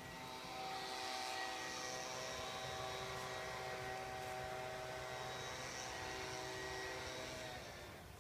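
A steady engine drone with a clear, unchanging pitch that swells up about a second in and fades away near the end.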